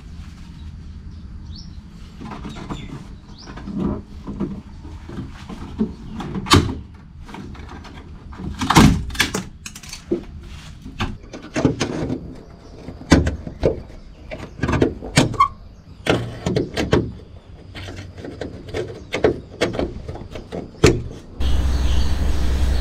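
Metal tool clicking and knocking against the metal trim clips of a VW T4 van's bare tailgate panel, an irregular string of sharp clicks with scraping between. Near the end it cuts to a steady low rumble.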